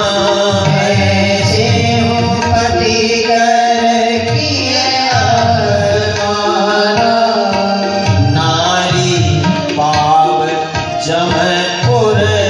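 A devotional song of a Ram katha, sung into a microphone with drum accompaniment: long held, gliding sung notes over a steady rhythmic beat.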